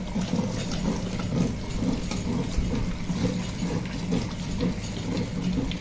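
Tabletop stone wet grinder running: a steady motor hum with a rough, repeating churn as the stone roller turns through thick, oily red chilli paste, grinding pandu mirchi pickle.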